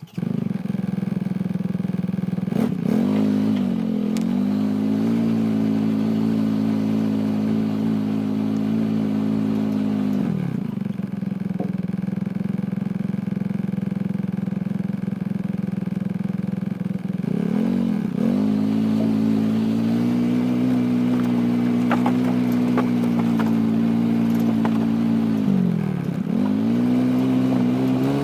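A motor vehicle's engine running steadily under way. Its engine speed drops and picks back up four times, about 3, 10, 18 and 26 seconds in.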